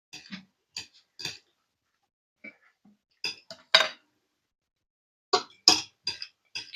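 A spoon clinking and scraping against a plate while eating rice, in a dozen or so short, irregular strokes.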